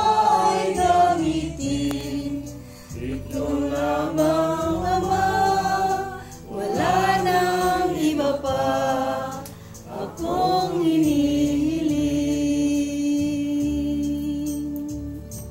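A small group of people singing together unaccompanied: a slow song with drawn-out, gliding notes, ending in one note held for about four seconds that fades near the end.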